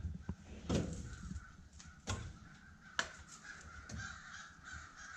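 A few separate sharp knocks and clinks, typical of hand tools being set down and put away. A harsh cawing call sounds about a second in.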